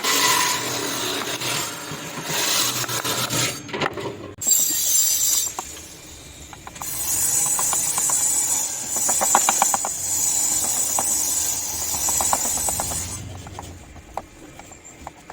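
Hand carving tools scraping and cutting into wood in uneven stretches, with runs of light tapping strokes.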